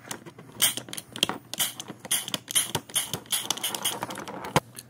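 Plastic asthma inhaler being handled and shaken: a quick, irregular series of clicks and rattles with short hissy bursts, about two a second.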